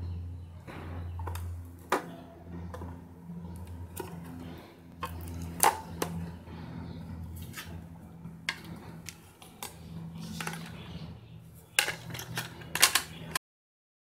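Sharp plastic clicks and knocks from handling a Hikvision AX Hub alarm control panel: the battery connector being plugged in and the white plastic back cover being fitted on, with a cluster of clicks near the end. A steady low hum runs underneath, and the sound cuts off suddenly near the end.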